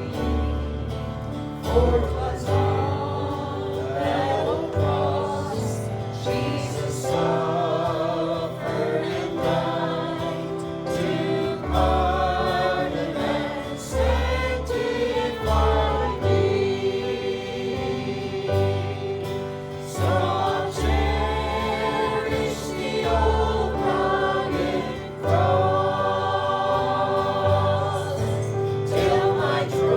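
A group of voices singing a gospel hymn over instrumental accompaniment, with a held organ-like chord and a deep bass line.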